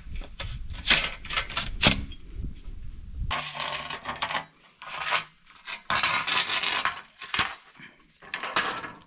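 Aluminium solar racking rails being handled: a few sharp metal clicks, then several scraping rubs about a second long each, metal sliding on metal.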